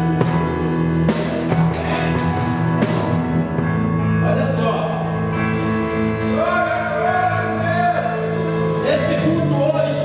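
Electronic keyboard playing a worship song: sustained chords over a bass line, with drum hits through the first three seconds, then a wavering lead melody enters about four seconds in.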